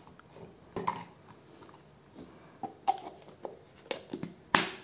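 Plastic LED bulb being handled and taken out of its plastic lamp holder: a scatter of light clicks and knocks, a few with a short squeak, the loudest near the end.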